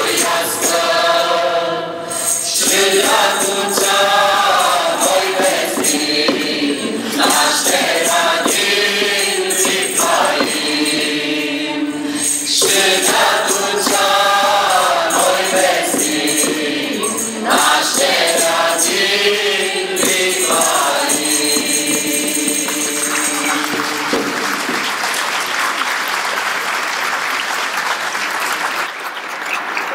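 Mixed choir of men's and women's voices singing a Romanian colindă (Christmas carol), with a tambourine keeping time. The song ends about three-quarters of the way through, and the audience applauds.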